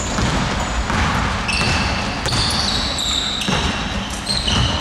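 A basketball being dribbled on a hardwood gym floor, with repeated bounces. Sneakers squeak on the boards several times from about a second and a half in, as short high squeals that start and stop.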